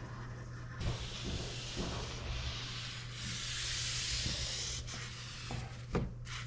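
A cloth rubbing back and forth over window glass, wiping it clean: a soft, steady rubbing hiss with a few distinct strokes, over a low steady hum.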